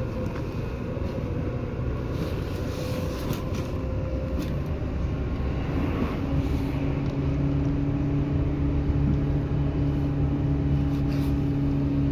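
Seibu 2000 series electric train running, heard from aboard: a steady rumble of wheels on rail with a few light clicks. About halfway through, a steady low motor hum sets in and the noise grows gradually louder.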